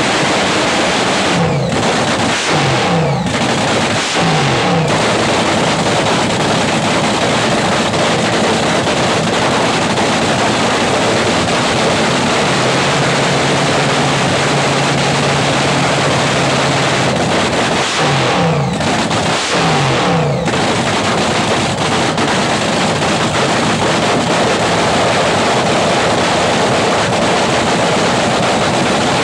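Supercharged Top Fuel dragster V8 running in the pits while being tuned, a loud, rough, steady roar. The throttle is blipped briefly a couple of seconds in and again about two-thirds of the way through.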